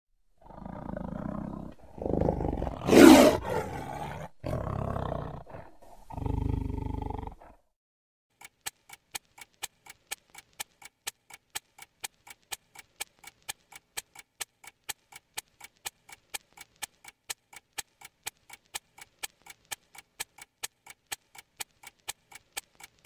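A few loud roars in separate bursts over the first seven seconds or so, one rising sharply in pitch about three seconds in. Then a watch ticking evenly, about three ticks a second.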